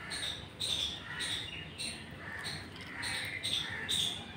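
Soft, wet khichdi squelching as it is mixed and squeezed by hand on a plate: a series of short squishes about twice a second.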